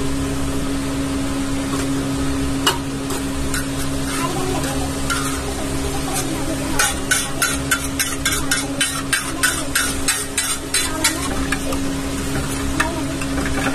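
Flat metal spatula striking and scraping a large flat steel griddle as a vegetable mash is chopped and stirred, with frying sizzle throughout. A few single strikes come first, then a quick run of about four chops a second for several seconds in the middle.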